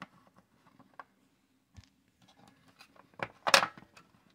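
Dry-cell batteries being worked loose and pulled out of a portable radio's plastic battery compartment: light scattered clicks and scrapes, then a louder clatter of knocks about three seconds in.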